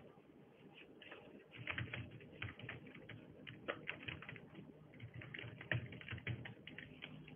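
Typing on a computer keyboard: a quick, irregular run of keystroke clicks that picks up after about a second and a half.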